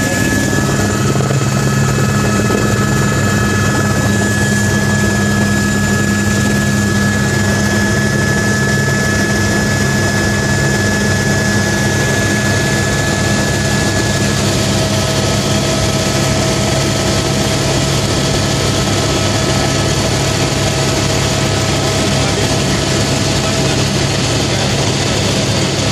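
Helicopter engine and rotor noise heard from inside the cabin in level flight: loud and steady, with a low drone and a thin high whine over it.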